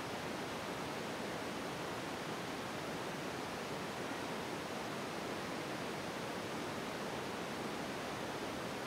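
Steady, even hiss with no distinct taps, clicks or tones standing out.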